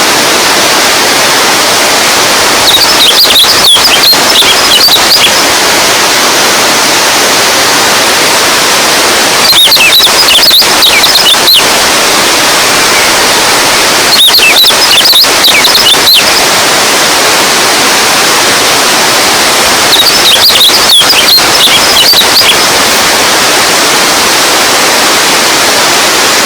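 Running water rushing in a steady, loud hiss. Four times, a run of high, sharp clicks and chirps lasting about two seconds rises above it.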